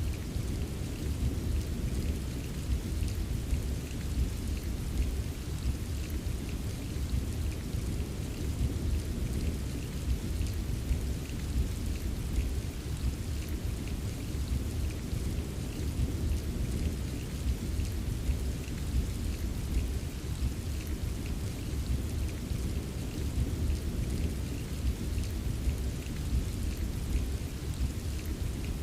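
Steady rain ambience: an even wash of rain with a constant deep rumble underneath and a light patter of drops on top, unchanging throughout.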